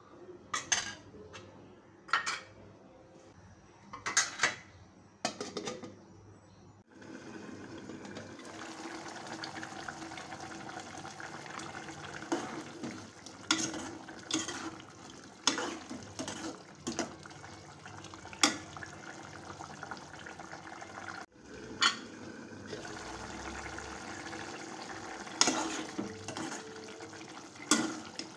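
A steel ladle clinking and scraping against an aluminium cooking pot as thin curry is stirred, with some liquid sloshing. The strikes come irregularly, sparse at first and more frequent later, over a steady hiss that comes in about seven seconds in.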